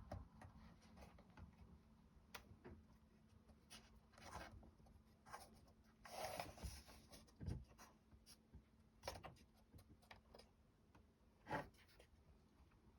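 Near silence broken by faint handling sounds as small wooden clock-kit parts are fitted and glued by hand: scattered light clicks, a brief scratchy rustle about six seconds in, and a sharper click near the end.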